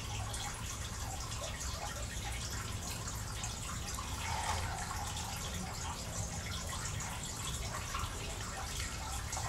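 Steady trickle of running water with a low hum underneath.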